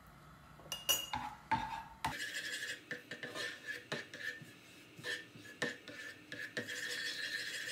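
A spatula stirring a thin liquid sauce in a nonstick frying pan, with repeated scrapes and light knocks against the pan.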